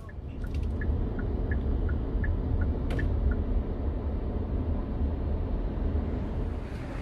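Car driving, heard from inside the cabin: a steady low rumble of tyres and engine that swells in over the first second. Short, faint high blips come about three times a second during the first three seconds.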